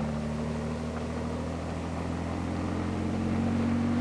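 Bell 47 helicopter's piston engine and rotor running in a steady low hum as it hovers, the pitch creeping up slightly near the end.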